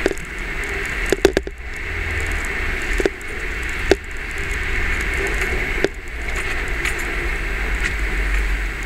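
Jeep driving slowly over a rough, rocky tunnel floor, heard from inside the cab as a steady low engine and tyre rumble. Sharp taps come from a camera knocking against the windshield: three in quick succession a little over a second in, then single taps a few seconds apart.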